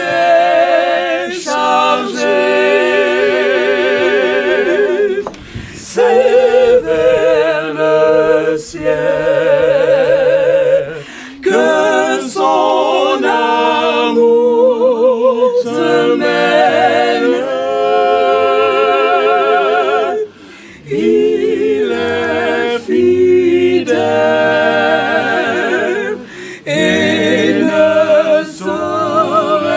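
A small group of men and women singing a hymn unaccompanied, in long held notes with vibrato, phrase after phrase with short breaks for breath.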